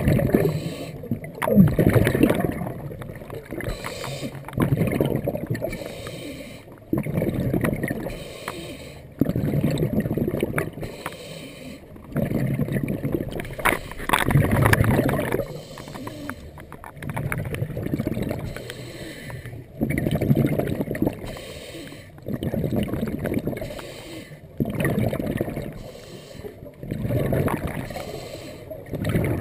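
Scuba diver breathing through a regulator underwater: a regular cycle of inhales and bubbling exhales, one roughly every two to three seconds.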